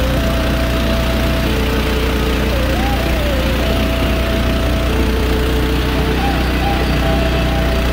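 Mudskipper 16 hp, 420 cc single-cylinder long-tail mud motor running steadily under way, pushing a jon boat along at an even speed.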